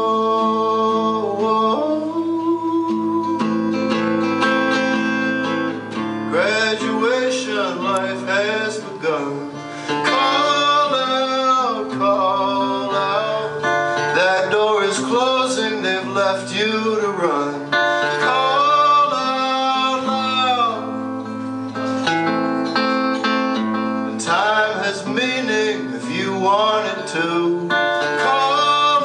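Acoustic guitar played live, with a man's singing voice joining over it about six seconds in and continuing, with a short break a little past the middle.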